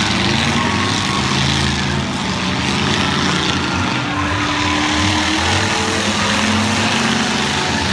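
Several demolition derby cars' engines running and revving together on a dirt arena, a loud, steady, layered engine din with pitches shifting as the cars accelerate and slow.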